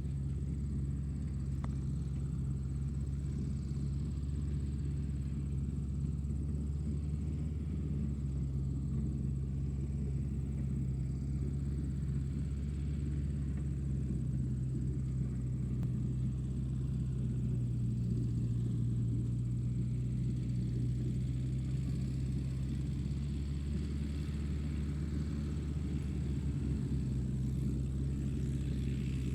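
Tractor engine running steadily at a constant speed, a deep, even low drone.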